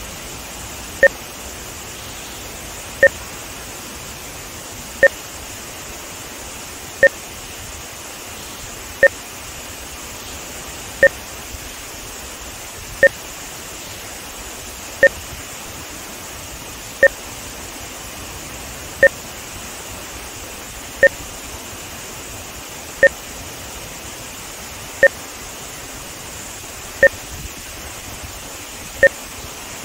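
Short electronic beeps with a lower and a higher tone together, one every two seconds, sync markers for measuring audio-video timing. Under them runs a steady hiss of water pouring over a dam spillway.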